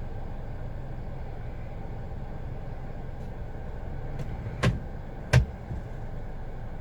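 Kia Ray's three-cylinder engine idling with a steady low rumble. The owner reports a rough, hunting idle even after new spark plugs and ignition coils and a cleaned throttle body and injectors. Two sharp clicks, about two-thirds of a second apart, come just past the middle and are the loudest sounds.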